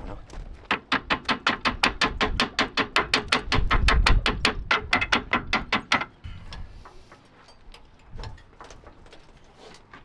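Rapid, even metallic clicking or tapping, about six strikes a second for roughly five seconds, with a low rumble under it near the middle, then a few softer scattered knocks.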